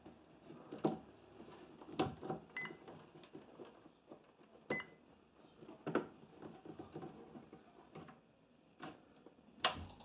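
Multimeter probe tips clicking and scraping against the terminals of a MIG welder's mains on/off switch during a continuity test, with two very short high chirps from the meter. The continuity buzzer never holds a steady tone: there is no continuity through the switch, which is taken for a failed switch.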